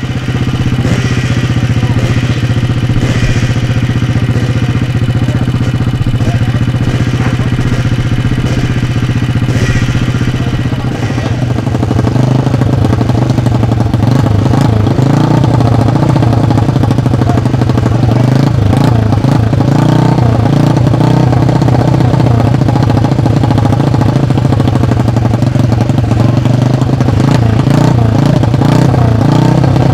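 Classic CCM scrambler's big four-stroke single-cylinder engine running with a steady idle note. About twelve seconds in it gets louder and less even, as the throttle is worked.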